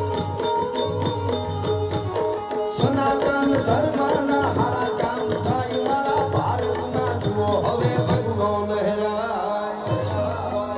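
Live traditional Indian music over the stage sound system, without words: a hand-drum rhythm under held drone notes and a melody, turning busier about three seconds in.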